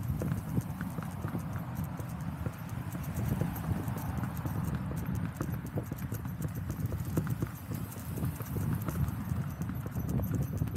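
Hooves of a ridden horse clip-clopping on asphalt, a steady run of irregular hoofbeats.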